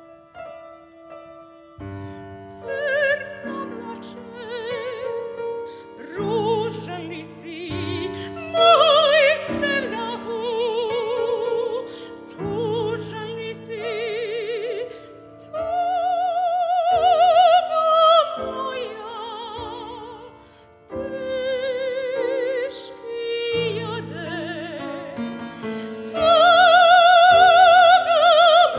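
Art song for voice and piano: a classically trained singer sings with vibrato over piano accompaniment. The voice comes in about two seconds in, after a few piano notes, and peaks in a long, loud held note near the end.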